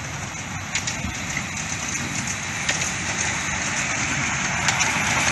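Miniature steam locomotive 850 Lord Nelson hauling a passenger train towards the listener, its running noise growing steadily louder as it nears, with a few sharp clicks from the wheels on the track.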